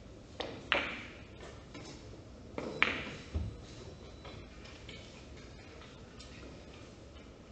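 Carom billiards shot: the cue tip taps the cue ball, then sharp clicks of balls colliding follow, once just under a second in and again near three seconds, followed by a duller knock.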